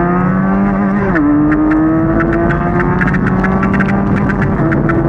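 Benelli 300's stock parallel-twin engine accelerating hard, its pitch climbing through the revs and dropping sharply at an upshift about a second in and again near the end. A rapid scatter of sharp clicks runs over it after the first shift.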